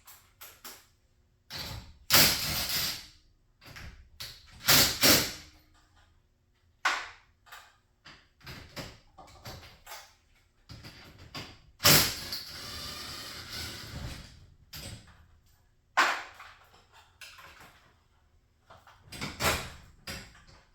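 Irregular knocks, clanks and scraping from work on a garage door's hardware, with one longer rasping noise lasting about two seconds after a sharp knock midway through.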